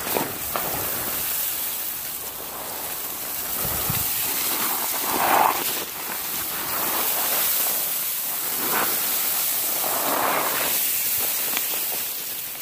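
Leafy scrub-oak branches and dry brush rustling and scraping close to the microphone as a hiker pushes through, a steady hiss with a few louder swells, the loudest about five seconds in.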